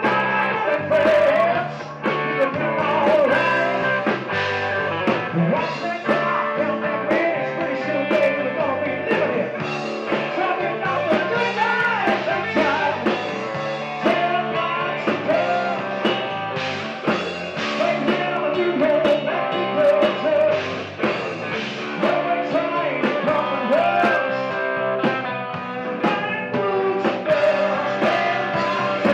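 Live rock band playing: electric guitar, bass guitar and drum kit, with a male singer singing lead.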